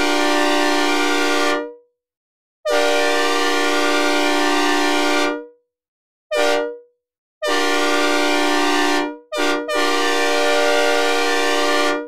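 Synthesized recreation of a Nathan K5UL-AU-LS five-chime train horn, a loud chord of several steady tones. A held blast cuts off about a second and a half in, followed by a long blast, a short one, another long one, a quick short one and a last long blast that ends near the end.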